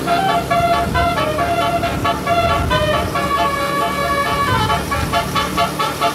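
Bus 'telolet' tuned multi-tone air horn playing a rapid melody of stepped notes, changing pitch every fraction of a second, over a low rumble.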